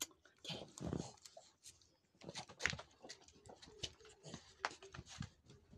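Faint scattered taps and rustles of a small dog moving about on a blanket and climbing down, its paws patting.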